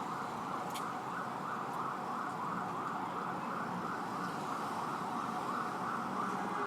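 Emergency vehicle siren on a fast yelp, sweeping up and down about four times a second, over steady city street and traffic noise.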